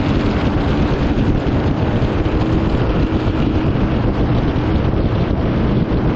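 Turbocharged LS V8 jet boat running on the water, its engine tone fading about halfway through, under heavy wind buffeting on the microphone.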